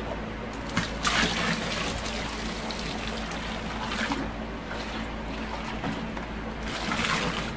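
Soaked SLS solution poured from a plastic jug into a plastic bucket of liquid soap mixture, trickling and splashing. It swells louder about a second in and again near the end.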